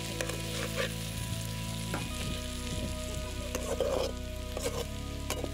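Diced banana frying in oil in a steel kadai, sizzling steadily, while a spatula stirs and scrapes through it with scattered clinks against the pan.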